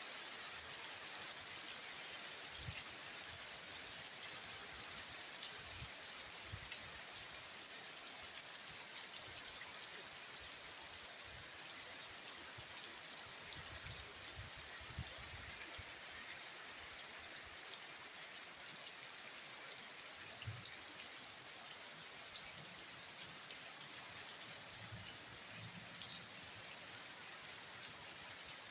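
Heavy rain falling in a steady hiss, with a few faint low thuds here and there.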